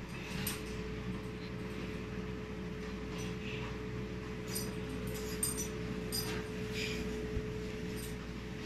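A room appliance running with a steady hum and one held tone, with a few faint light clicks and rustles from animals moving about.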